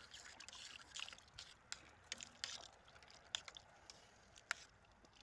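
A metal utensil stirring chopped vegetables in stock in a metal pot: faint liquid sloshing with light clicks of the utensil against the pot, about one a second.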